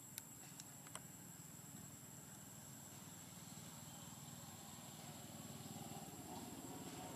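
Faint outdoor ambience with a thin, steady high-pitched whine and three small clicks in the first second.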